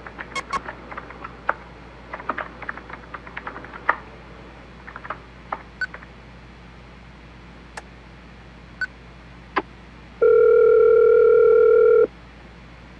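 Scattered clicks and taps with two short beeps, then a telephone's electronic ring: one steady tone lasting about two seconds, starting about ten seconds in.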